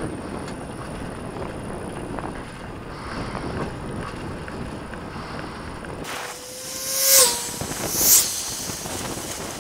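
Steady rushing noise, then two cars pass close by on the road about seven and eight seconds in, each rising to a loud tyre-and-wind swoosh. The first carries a steady tone that drops in pitch as it goes past.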